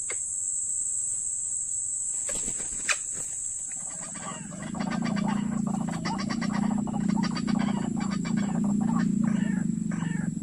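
Rapidly repeated, harsh croaking animal calls start about four seconds in and carry on, over a steady high-pitched buzz. A few short clicks and calls come before them.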